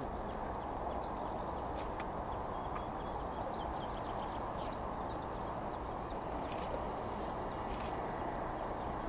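Small birds chirping, with a few quick falling whistles, over a steady rush of jet engine noise from a Boeing 737-700 climbing away at go-around thrust.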